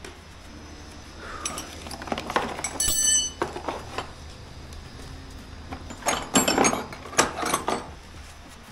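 Two spells of clattering and clinking from hard objects being handled and knocked together, with a short metallic ring about three seconds in.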